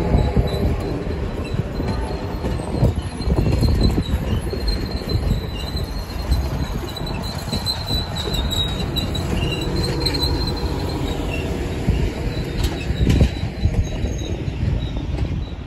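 Grand Canyon Railway passenger cars rolling past, their wheels rumbling on the rails with a thin, high wheel squeal that comes and goes through the first part and dies away as the last car passes.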